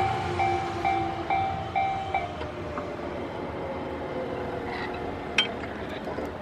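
Japanese level-crossing bell ringing in quick electronic dings, about two a second, then stopping about two seconds in as the crossing clears. Under it an electric train runs and fades away. A single sharp click comes near the end.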